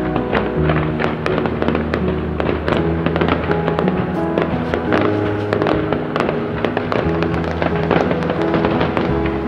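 Fireworks going off in a rapid run of bangs and crackles over music with sustained chords and a bass line.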